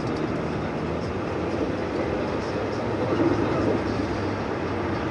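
Steady road and engine noise inside a moving car's cabin, holding an even level as the car drives at a constant speed.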